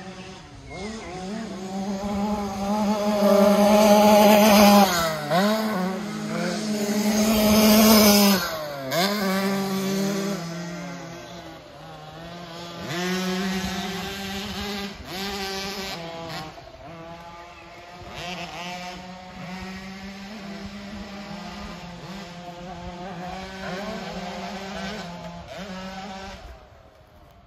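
Two 50cc two-stroke kids' dirt bikes, a KTM SX50 and a Husqvarna TC50, racing, their single-cylinder engines revving up and falling back again and again through the corners and jumps. They are loudest as they pass close a few seconds in, then quieter as they circle farther off, and the sound drops away near the end.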